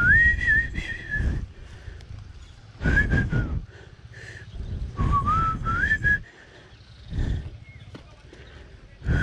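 A person whistling a few short phrases, the notes sliding up and down, with a loud rush of breath-like noise on the microphone alongside each phrase.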